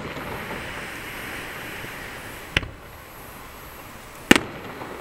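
Aerial firework shells bursting: a sharp bang about two and a half seconds in and a louder bang near the end, with a steady hiss between them.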